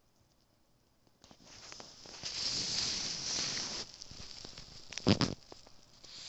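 A long-coat chihuahua chewing and nibbling on a ball-shaped treat close to the microphone, wet crackly munching that starts about a second in. One loud short knock about five seconds in stands out above the chewing.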